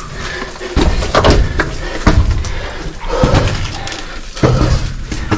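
Scuffs and knocks of a person crawling on hands and knees through a low mine tunnel, about one movement a second.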